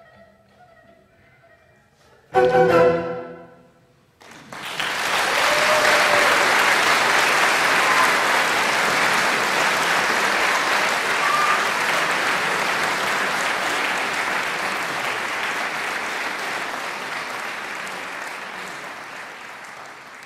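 Quiet held notes from a Chinese bowed-string ensemble of gaohu, erhu, zhonghu and cello, ending about two seconds in with one loud, short closing chord that rings briefly. About four seconds in, audience applause starts and goes on, slowly fading near the end.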